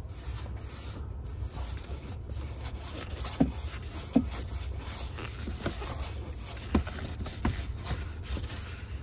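Foam applicator wrapped in a chamois rubbing over a car seat's upholstery as a coating is wiped on, with four short knocks a few seconds in and near the end.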